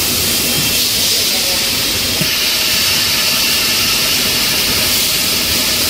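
Balloon dipping machine running: a steady, loud hiss over a low rumble.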